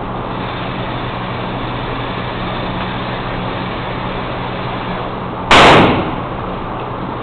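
A single gunshot in an indoor shooting range about five and a half seconds in, loud enough to clip the recording, its echo dying away within about half a second, over a steady background hum.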